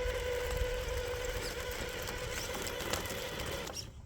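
Traxxas TRX-4 RC crawler on Deep Terrain Traxx, its Hobbywing AXE brushless motor and drivetrain whining at a steady pitch while it works at loose ground, the tracks not quite gripping. The whine stops near the end.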